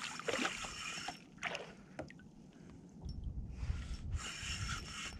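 Seawater sloshing and splashing against a kayak's hull, in irregular bursts, with a low rumble about three seconds in.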